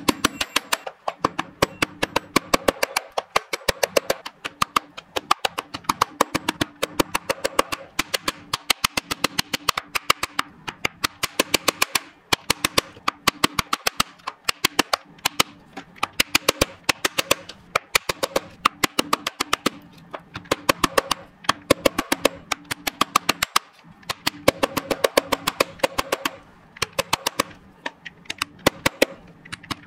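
Background music with sustained tones and a quick, tapping percussion beat.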